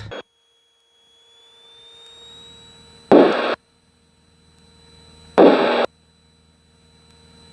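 Faint light-aircraft engine hum, slowly building, broken twice by a loud half-second burst of rushing noise. Each burst starts and stops abruptly, about two seconds apart.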